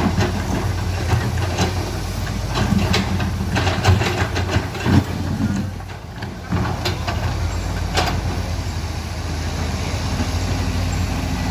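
Komatsu excavator's diesel engine running steadily, with irregular clanks and knocks from the working attachment; the engine eases briefly about halfway through.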